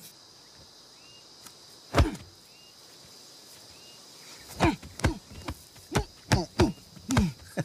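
Film sound effects of punches swishing through the air, each a short whoosh falling in pitch. One comes about two seconds in, then a rapid flurry of about eight in the last three seconds. Under them runs a steady high insect buzz.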